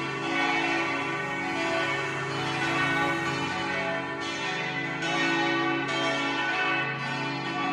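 Several church bells ringing together in a continuous peal, their strokes overlapping.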